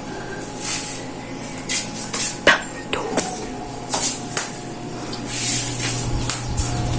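Household handling sounds: scattered knocks and clicks, with a few short hissing sweeps, over a steady low hum.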